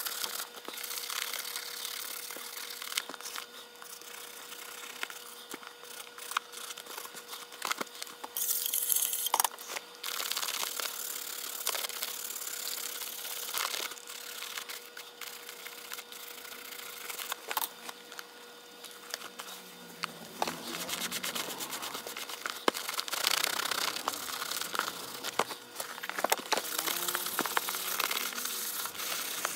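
Rubbing, creaking and small clicks from a leather baseball glove being handled, its laces worked and pushed with a wooden stick. There is a short hiss about nine seconds in and a faint steady hum underneath.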